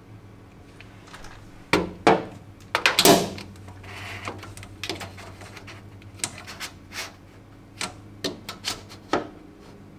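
Clicks and knocks of a slim LED grow-light bar, fitted with tiny magnets on its mounting clips, being pressed up against the metal roof of a cabinet and snapping into place. There is a loud cluster about two to three seconds in, then lighter taps every half second or so until near the end.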